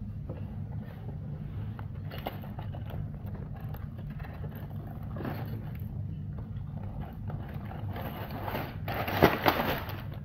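A cardboard Lego box being handled and upended, with plastic bags of pieces crinkling and sliding out onto the table, loudest in a rush of rustling near the end. A steady low hum runs underneath.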